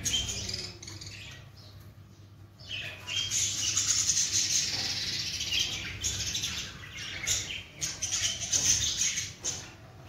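Budgerigars chattering and warbling. After a quieter first few seconds, a dense, continuous run of quick high chirps and trills starts about three seconds in and thins out near the end.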